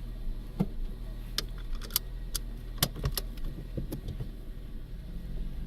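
A rattle: irregular sharp clicks and knocks over a steady low hum, dying away about four seconds in.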